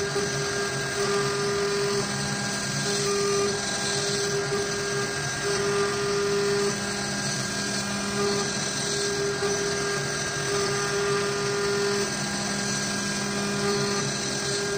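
Avid CNC router's spindle running while its end mill cuts a pocket into a wooden block. The result is a steady whine with cutting noise, and a humming tone that breaks off and returns every second or so as the bit moves.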